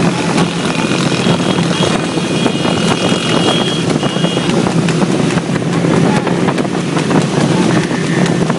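Motorcycle engines running steadily at speed, with wind buffeting the microphone.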